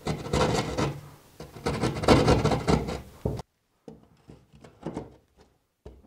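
A hand blade scraping and cutting gypsum drywall in quick rasping strokes, notching the edge of the opening for the box's 6-32 screw ears. It stops abruptly a little over three seconds in, leaving a few faint light ticks.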